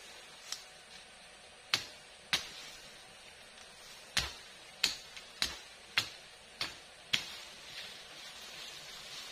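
Machete hacking at plant stems: about nine sharp chops, a few scattered at first, then a steady run of roughly one every half second or so through the middle.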